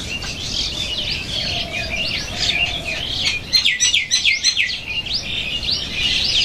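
Small birds chirping busily: many quick, high, sliding calls overlapping, thickest around the middle.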